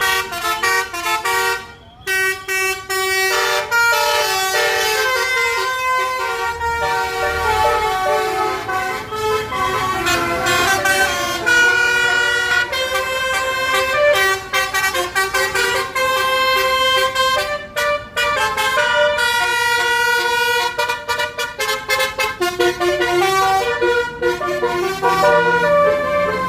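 Indonesian bus "telolet" multi-tone horn (Basuri type) playing a quick tune, its notes switching several times a second almost without pause, with brief breaks about 2 seconds and 18 seconds in.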